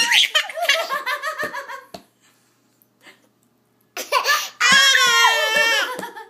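Toddler laughing in two bouts of high-pitched giggling, with a pause of about two seconds between them.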